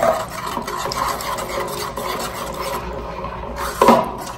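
Metal spoon scraping and stirring thick, hardening slime in a ceramic bowl, a steady rasping scrape as the activator is worked in. A brief louder knock near the end.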